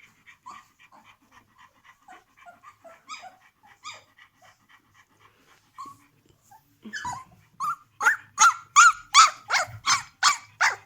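Seventeen-day-old puppies squeaking and whimpering in quick, small, high calls. From about seven seconds in, one starts a louder run of high-pitched cries, about three a second.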